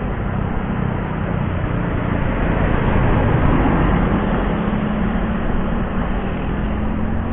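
A car driving past close by on the road, its engine and tyre noise swelling to the loudest about three to four seconds in and then fading, with a motorcycle riding by further off.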